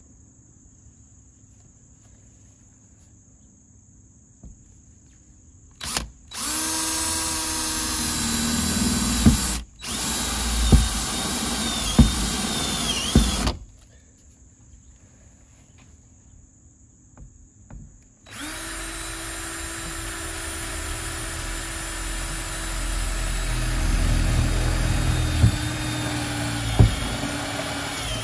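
Electric drill with a step bit boring pilot holes through a van's sheet-steel roof, in two runs. The first starts about six seconds in and lasts about seven seconds with a brief stop. The second starts about eighteen seconds in and runs on, its whine sagging a little in pitch near the end.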